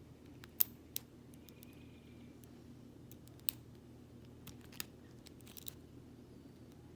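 Sharp, irregularly spaced metallic clicks of a lock pick working the pins in a Master Lock No. 570 padlock, about six in all, the loudest about half a second in.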